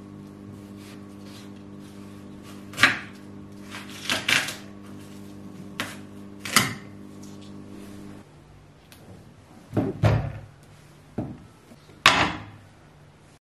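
Knife cutting and handling a watermelon on wooden boards: a series of sharp knocks and wet crunches a second or two apart, with a glass bowl set down on a wooden coaster near the end. A steady low hum runs underneath until about two-thirds of the way through.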